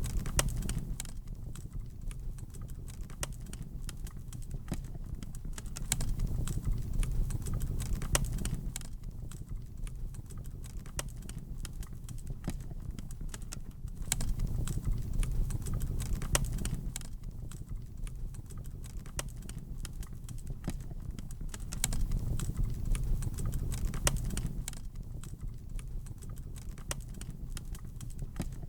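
Wood fire crackling, with many sharp pops and snaps over a low rush of flames that swells and eases about every eight seconds.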